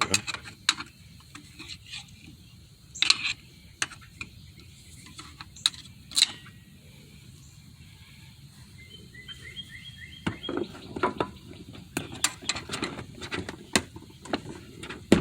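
Hand tools (needle-nose pliers and a screwdriver) clicking and clinking against a plastic push-pin clip and the metal of the hub shield while the ABS sensor wire clip is pried loose. The taps are scattered at first and come thick and fast from about ten seconds in.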